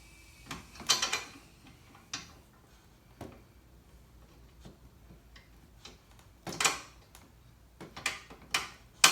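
Metal clinks, knocks and short scrapes as a carriage bolt is fed through the steel leg tubes of a table-saw stand and through a spacer between them. The sounds come as a few separate hits, with a longer scrape about two-thirds of the way in and a sharp knock at the end.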